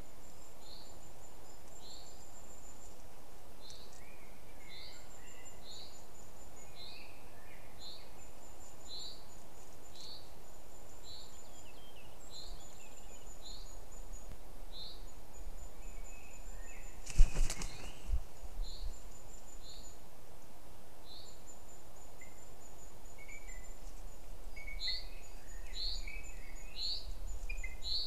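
Woodland birdsong over steady background noise: short high calls repeated about once a second, runs of very high, thin, rapid notes, and scattered lower chirps. About 17 seconds in comes a sudden loud thump and rustle close to the microphone, as one of the booted eagles shifts and leaves the twig nest.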